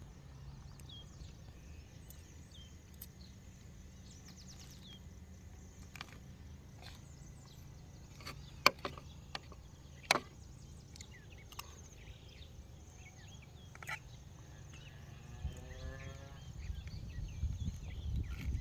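Metal spoon and fork clinking and scraping against a ceramic plate during a meal, with two sharp clinks about nine and ten seconds in standing out, over a faint rural background.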